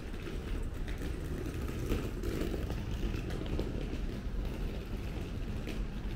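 Outdoor street ambience: a steady low rumble with a motor vehicle running, swelling a little about two to three seconds in.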